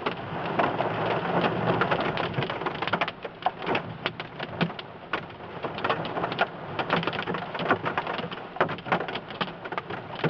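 Large hail pelting down during a thunderstorm: a dense, irregular patter of sharp hailstone impacts over a steady hiss, easing a little after about three seconds.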